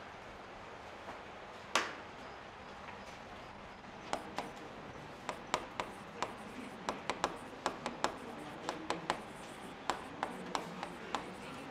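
Chalk writing on a chalkboard: a run of short, irregular taps and scrapes, two or three a second, starting about four seconds in, after a single tap a little under two seconds in.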